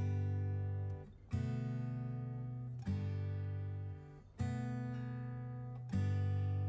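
Background music: a strummed guitar chord about every second and a half, each one ringing out and fading before the next.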